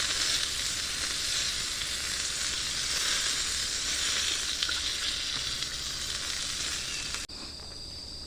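Meat sizzling on a hot iron griddle over a campfire, a steady frying hiss. About seven seconds in it cuts off abruptly, leaving crickets chirping with a steady high trill.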